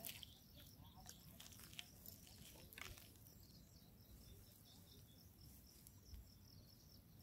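Near silence: faint outdoor ambience with a steady high chirping, about three chirps a second, and a few soft clicks.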